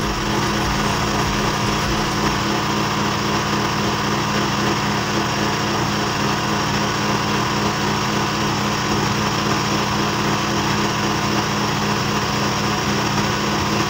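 Generator engine running steadily, a constant loud drone that does not change.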